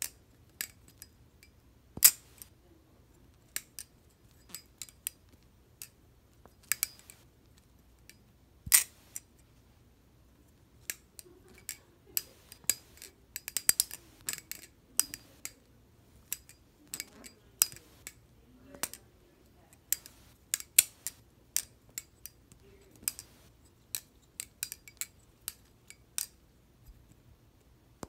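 Butterfly knife (balisong) being flipped by hand: its metal handles and blade clack against each other in irregular sharp clicks, some single, some in quick runs of several.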